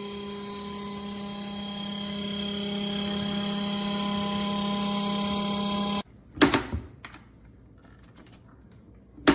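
Steady electric hum with a faint whine from a portable 12V compressor fridge running, growing slightly louder before it cuts off abruptly about six seconds in. A sharp knock follows, and another near the end.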